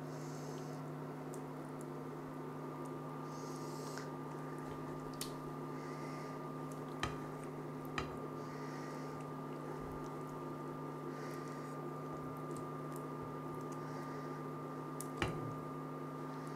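Wet, batter-soaked yufka pastry spooned from a bowl into an oiled pan, with soft squelches and a few light clicks of the spoon against the dishes. Under it, the switched-on electric cooktop gives a steady hum with a faint high whine.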